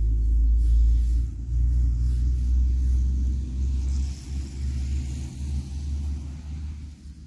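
Low, uneven rumble of wind buffeting the phone's microphone, heaviest for the first few seconds and easing off toward the end.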